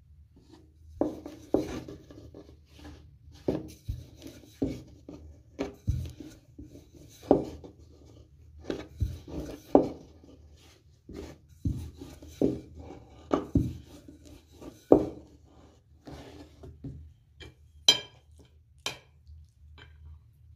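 Wooden rolling pin rolling out rounds of dough on a wooden board: a run of irregular knocks and short rolling strokes, about one a second. Near the end come two sharp clinks of a metal spoon against the bowl of filling.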